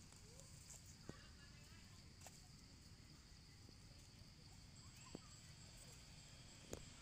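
Near silence: faint outdoor background with a steady high-pitched hum and a few faint clicks.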